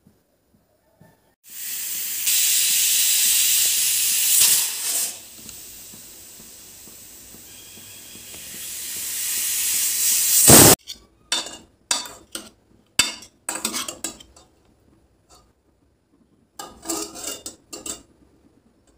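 Pressure cooker venting steam through its weight valve: a loud hiss for a few seconds, then a quieter hiss that builds again and cuts off suddenly. After that, a metal ladle clinks and scrapes against the inside of the pot in short bursts.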